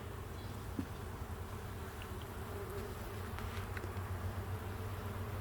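Honey bees buzzing steadily around an opened beehive, a dense, even hum of many bees.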